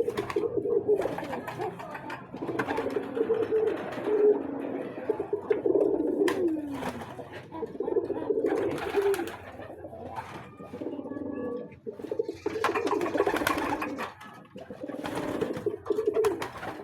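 Domestic pigeons cooing over and over, several low rolling coos overlapping, with scattered short rustles and taps among them.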